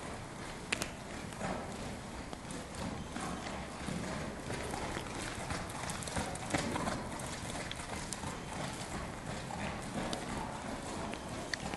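Hoofbeats of an Oldenburg horse trotting on the lunge over sand arena footing, a steady run of soft hoof falls with a few sharper clicks.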